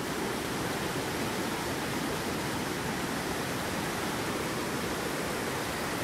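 Steady rush of a rocky stream's rapids and small cascades, water tumbling over stones.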